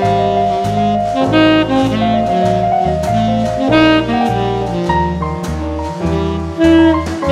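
Instrumental jazz background music: a melody line over a stepping bass line and drums.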